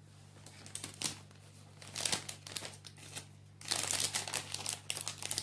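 Clear cellophane packet crinkling as it is handled and put down, in irregular bursts about a second in and again through the second half.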